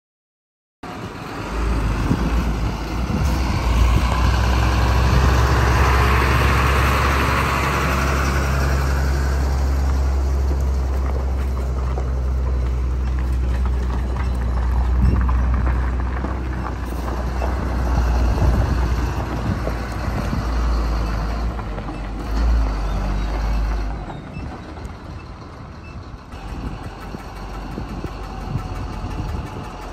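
Heavy diesel truck engine running with a steady low drone as the loaded log truck tows a trailer carrying a tractor; the drone drops off about 24 seconds in.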